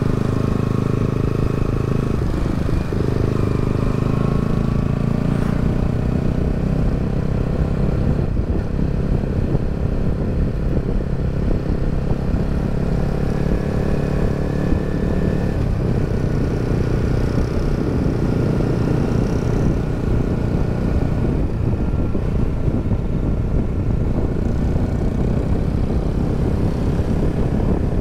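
Yamaha XSR 155's single-cylinder engine running at a steady cruise, its pitch drifting gently up and down with the throttle. Steady wind rush on the microphone runs under it.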